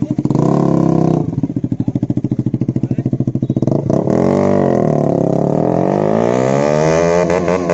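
KTM Duke single-cylinder engine running with the exhaust removed, loud and raw. It drops from higher revs to a choppy idle with each firing pulse distinct, is blipped about four seconds in, then is revved up and held high with quick rises and falls near the end.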